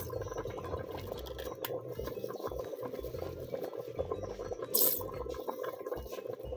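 A pot of greens boiling hard, with a steady dense bubbling. A single brief sharp knock or splash stands out near the end.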